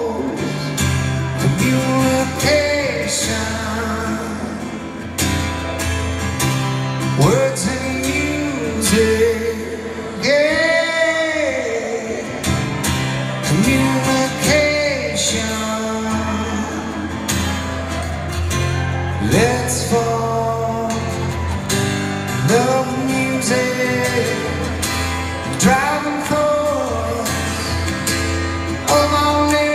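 A male singer's voice with his own acoustic guitar, heard live in a large arena, singing long held phrases over the guitar.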